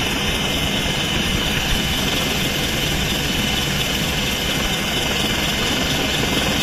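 Helicopter engine and rotor noise heard inside the cabin with the side door open: a steady rumble under a constant high whine.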